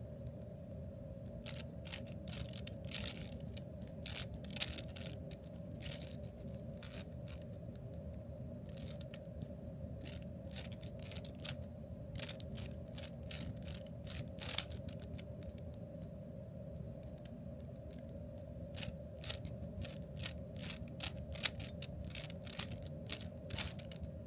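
Scattered light clicks and taps at an irregular pace over a steady low hum with a faint steady tone.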